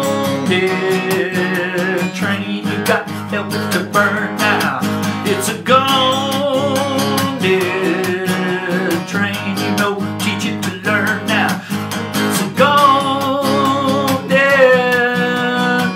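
Steel-string acoustic guitar strummed in a steady, driving rhythm, with a man's voice holding long, wavering notes over it at several points.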